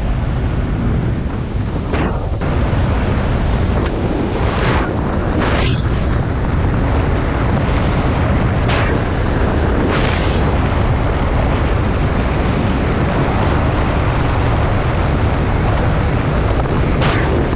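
Mercury 125 two-stroke outboard running a small aluminum bass boat at speed, under heavy wind noise on the microphone and rushing water, with brief louder rushes every few seconds.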